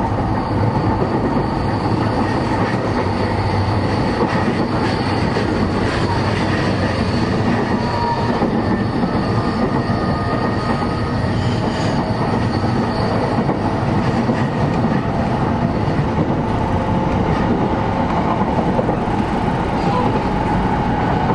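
Running sound inside a JR East E233 series 5000 electric commuter train travelling at speed between stations: a steady, loud rumble of wheels on rail with a few faint steady whining tones over it.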